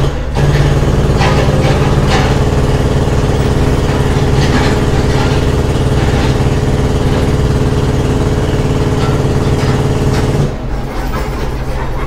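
Construction machinery engine running steadily, with scattered knocks over it; the engine drops away about ten and a half seconds in.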